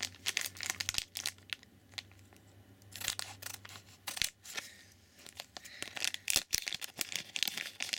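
Foil trading-card booster pack crinkling in the hands, cut open with scissors around the middle, then crinkling again as it is pulled open, with short quiet pauses between.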